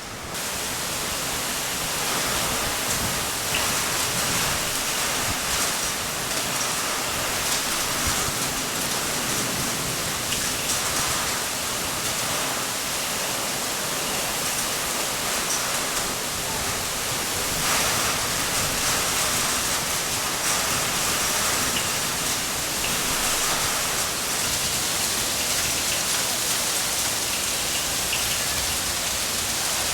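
Heavy rain falling steadily during a thunderstorm, a dense, even hiss.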